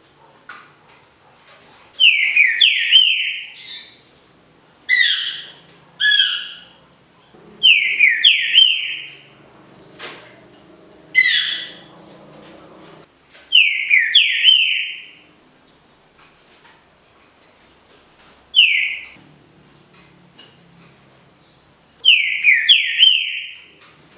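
Green-winged saltator (trinca-ferro) singing its clean 'canto liso' song: short phrases of a few clear notes that each slide downward. The phrases come about eight times, a few seconds apart.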